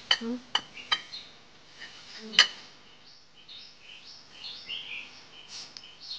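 Metal cutlery clinking against ceramic dishes: a few sharp clicks in the first second and the loudest one about two and a half seconds in. Birds chirp faintly throughout.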